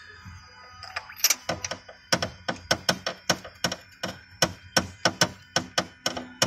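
Ratchet wrench on a long socket extension clicking in a steady run of sharp clicks, about five a second, starting about a second in, as a spark plug is worked loose to check the cylinder for coolant from a blown head gasket.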